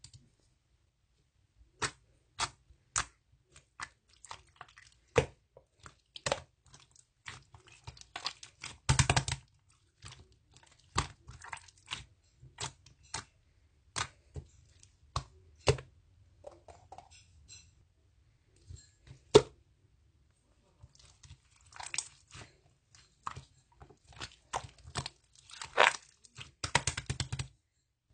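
Slime being squeezed and pressed by hand, giving irregular sharp pops and crackly clicks with short quiet gaps and a few louder snaps.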